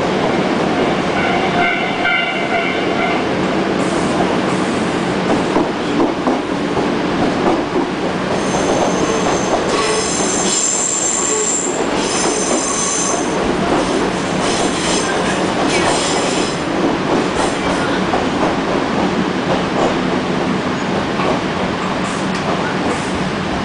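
Electric commuter train running, heard from inside the passenger car: a steady rumble of wheels on rail, with high-pitched wheel squeal. There is a short squeal about two seconds in and a longer, higher one lasting several seconds in the middle.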